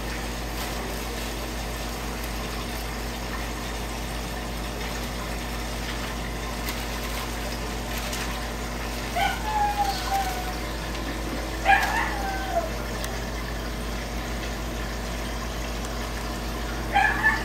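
Aquarium water pump and filter running, a steady hum with rushing water. Two short voice-like calls, falling in pitch, break in about halfway through.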